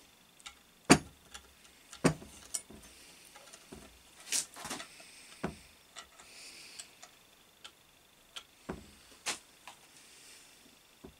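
Irregular sharp metallic clicks and taps as a long through-bolt is worked through the holes of an electric motor's housing and end bells; the loudest knock comes about a second in, with faint rustling between the clicks.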